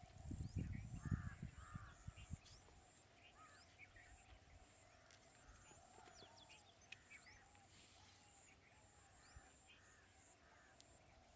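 Birds calling with many short chirps and harsher call-like notes over a faint steady hum, outdoor wild ambience. Low thumps and rumbles fill the first two seconds, then fade.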